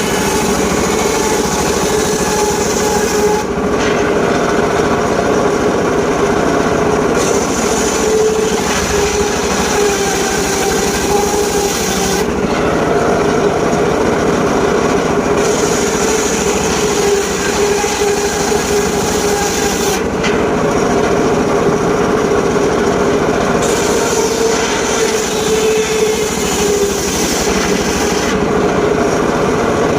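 Portable circular sawmill running steadily and sawing teak wood, its pitch holding level. The high hiss drops away for a few seconds about every eight seconds.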